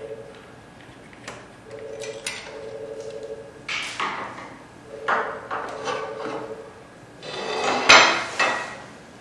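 The lower front panel of a TSC label printer being worked loose and pulled off: scattered clicks and knocks, then scraping and rattling, with a louder clatter and a sharp snap near the end. A buzzing hum comes and goes underneath.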